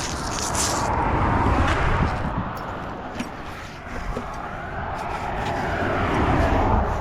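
Road traffic: vehicles passing, the rumble rising and fading twice, with a few light clicks.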